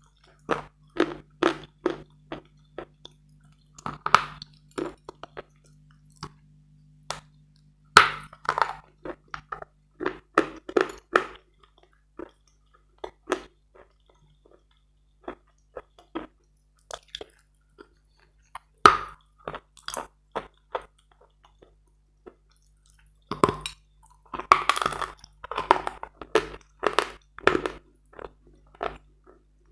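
Close-miked biting and chewing of hard chalk: sharp crunches come in clusters a few seconds apart, with short pauses between them, and a denser run of crunching near the end.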